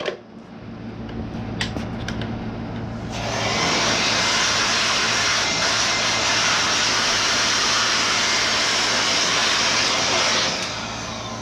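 Bauer handheld blower running, pushing a loud steady rush of air after it is opened up about three seconds in, then easing back to a lower hum near the end, as it blows dirt and debris off an engine.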